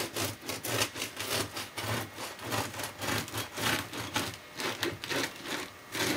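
A knife sawing back and forth through a loaf of freshly baked homemade rye bread, a rasping stroke about twice a second as the blade works through the crackly crust and crumb.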